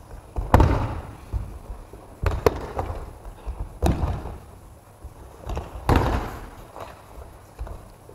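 Aikido breakfalls: bodies and hands slapping onto the mats as partners are thrown, a string of irregular sharp slaps and thuds with the loudest about half a second in, near four seconds and near six seconds. Each hit echoes in a large hall.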